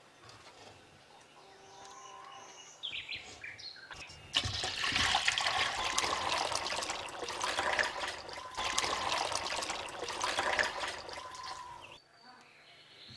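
Thick buttermilk pouring out of the mouth of a clay butter churn into an aluminium pot, splashing into the liquid already there. It starts about four seconds in and stops suddenly near the end.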